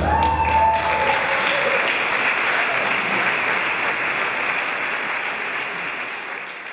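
Audience applauding after the song ends, with one held vocal note over the first second; the applause dies away near the end.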